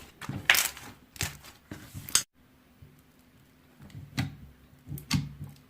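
Slime being squished and pressed by hand, giving a few short, separate squelching clicks.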